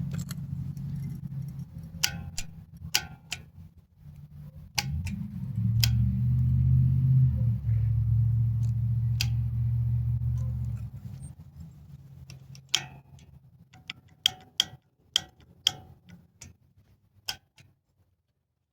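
A steady low hum for several seconds, then a run of separate sharp clicks, irregularly spaced and a second or less apart: a Yamaha 1700 Warrior that won't crank, giving only clicks such as the single click of its decompression solenoid each time the starter is pressed.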